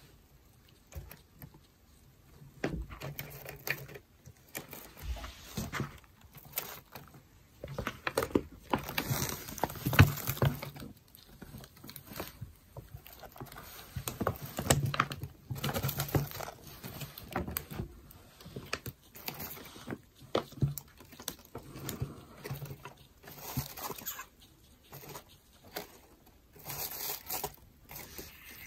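Cockatiels' beaks and feet tapping, clicking and scratching on a wooden tabletop and at the things on it, an irregular run of light taps and clicks with scraping in between.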